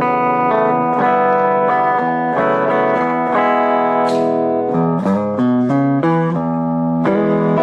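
Electric bass played through an EROK MA10 mini bass amp, a melodic line of ringing single notes that moves quicker about five seconds in, heard with little deep low end.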